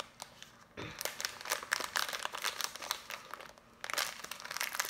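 Plastic snack wrapper crinkling and tearing as it is pulled open by hand, in irregular crackly bursts with a soft knock just under a second in.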